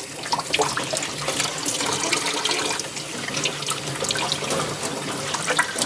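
Water from a sink spray nozzle spattering through a stainless steel mesh dishwasher filter screen and into the sink, an uneven splashing hiss. The screen is being rinsed from the back to push trapped debris and lint out of the mesh.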